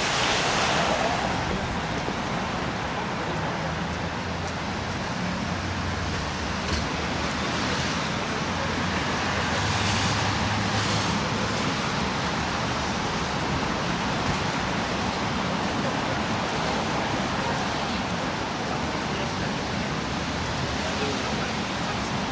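Steady city street noise: road traffic with cars passing and a low engine hum coming and going, and faint voices in the background.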